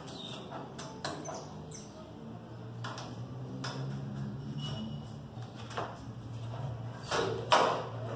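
Masking tape being peeled, pulled and pressed down on a pickup tailgate: scattered small clicks and short rasping rips, with a louder rasp about seven seconds in, over a steady low hum.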